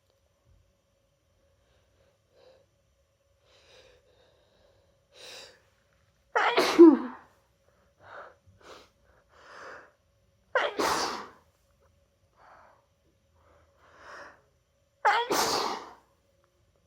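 Three loud, full sneezes about four seconds apart, each built up with short catching breaths. They come from a head cold and are set off by chhinkni sneezing powder.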